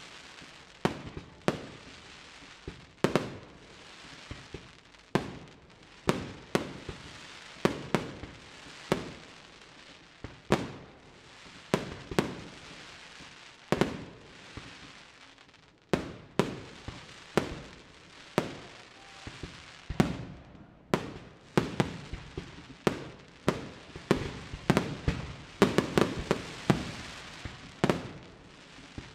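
Aerial firework shells bursting in a steady series of sharp bangs, each trailing off in an echo. The bangs come about one to two a second and grow thicker and louder near the end.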